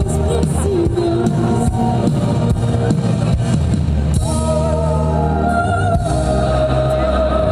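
Live band music: a woman singing into a microphone over keyboards and a steady beat, with a long held note coming in about four seconds in.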